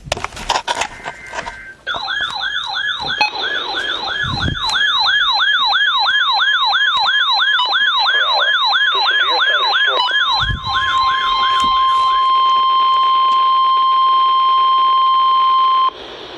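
Midland WR-100 weather radio sounding an emergency alert. A short burst of buzzy data tones at the start gives way to a loud warbling siren alarm, about three falling sweeps a second. Over its last seconds the steady NOAA weather radio attention tone (1050 Hz) comes in and takes over, then cuts off suddenly near the end, leaving faint radio hiss.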